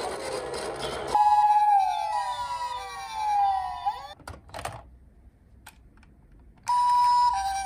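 Toy ambulance's electronic siren sounding a two-tone hi-lo call, after a second of hissing noise. The hi-lo gives way to a falling wail, breaks off into a short gap, and the hi-lo starts again near the end.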